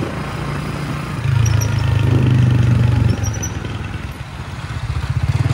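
Motorcycle engine running under its riders. It gets louder about a second in as the throttle opens, eases off about three seconds in, then builds again near the end.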